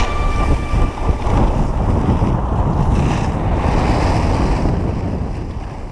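Wind rushing over the microphone of a camera carried by a skier moving down the slope, a loud, even buffeting that fades out towards the end.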